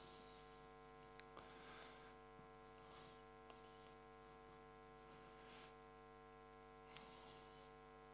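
Near silence with a steady electrical mains hum in the sound system, broken only by a few faint clicks.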